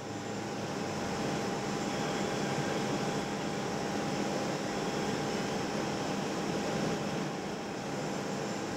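Steady hum and hiss of busy city ambience, with a few faint held tones running through it.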